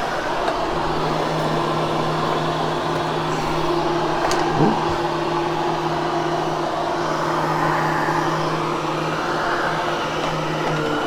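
Vacuum cleaner running steadily over carpet: a rushing of air under a steady motor hum, with a brief click about four seconds in.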